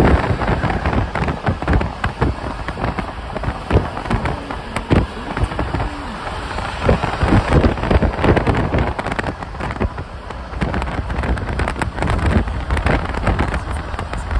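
Mercedes-Benz E63 AMG (W212) naturally aspirated 6.2-litre V8 under way at expressway speed: a steady low engine and exhaust rumble, covered by heavy, irregular crackling wind buffeting and road noise on the microphone.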